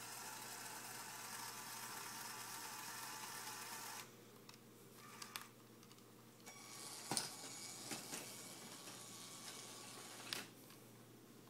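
Small electric motor of a Lego train layout whirring steadily, then cutting off abruptly about four seconds in, followed by a few light clicks.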